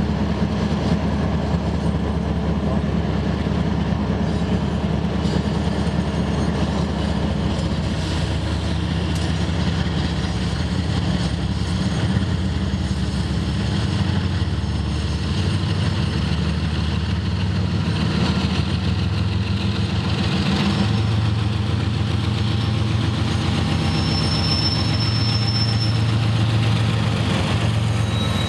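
Two BNSF diesel locomotives pulling an autorack freight train approach and pass close by, their engines a steady low drone that grows a little louder as they draw near. Brief thin high-pitched wheel squeals sound near the end.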